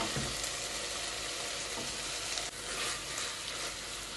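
Onion and tomato masala sizzling in an aluminium pressure cooker as a metal spatula stirs it, with a few light knocks of the spatula against the pan.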